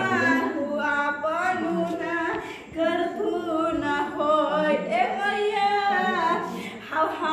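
Unaccompanied singing of a devotional folk song to the mother goddess, long melodic lines held and bent in pitch with no instruments.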